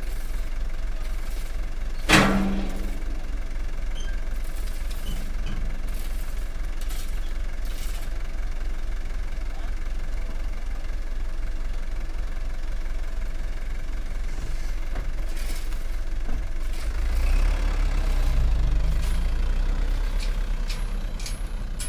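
Light diesel dump truck idling steadily, with one sharp, loud metal clank at the tailgate about two seconds in. Near the end the engine revs up as the truck pulls away.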